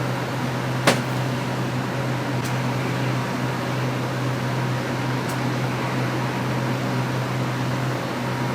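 Steady low hum with an even hiss, and a single sharp click about a second in.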